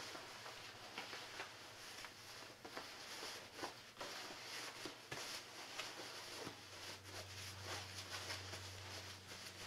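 Faint rustling of nylon fabric as a down puffy jacket is stuffed into its own inner mesh pocket, in scattered short crinkles.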